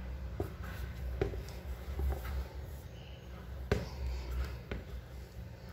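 Silicone spatula stirring and scraping a stiff, floury dough in a bowl as flour is worked in, with a few sharp knocks over a low rumble.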